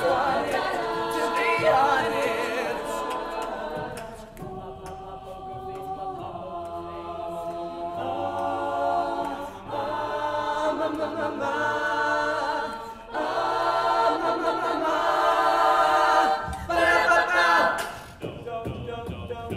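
Mixed-voice a cappella group singing held chords without instruments. It drops softer about four seconds in and swells back up about two-thirds of the way through.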